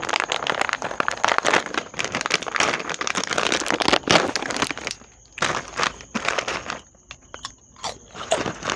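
Plastic snack bag of Oishi Prawn Crackers crinkling and rustling as it is handled and pulled open. About five seconds in the crinkling thins out to quieter, scattered crackles.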